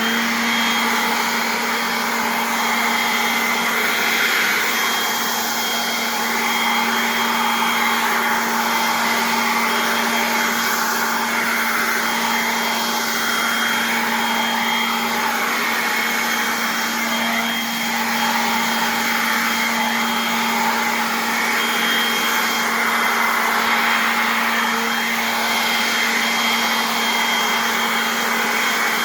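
Electric air compressor switched on, starting abruptly and then running steadily with a constant motor hum and dense mechanical noise.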